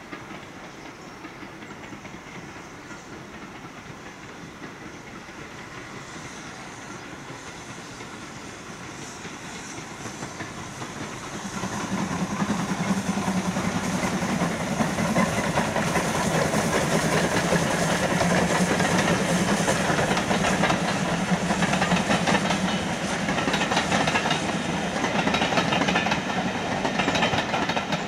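Steam locomotive hauling a passenger train. It is heard faintly as it approaches, grows suddenly louder a little under halfway through as it draws level, and then its coaches roll past.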